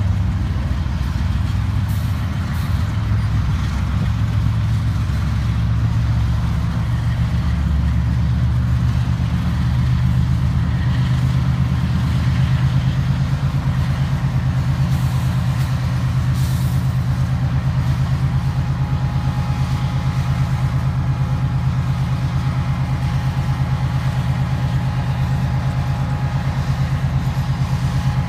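GE diesel-electric locomotives in the mid-train helper set of a loaded coal train working at full throttle, a deep steady drone, with their wheels spinning and grinding on snowy rail as the stalled train fights to get moving up a grade. A thin steady whine comes in about two-thirds of the way through.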